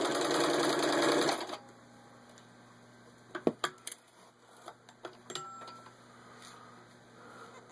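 Singer 15-91 sewing machine with its built-in gear-drive motor running fast, stitching through four layers of denim, then stopping about a second and a half in. A few light clicks and knocks follow a couple of seconds later.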